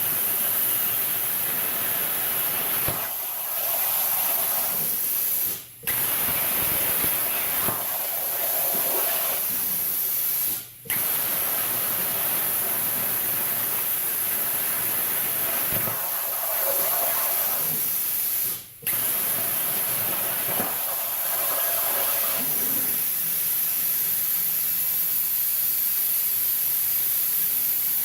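Shop air compressor running, a loud steady noise that drops out for an instant three times.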